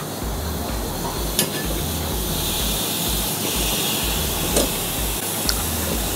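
Bacon strips sizzling in a hot ridged grill pan, the hiss getting stronger about two seconds in as more strips are laid in, with a few light clicks from metal tongs.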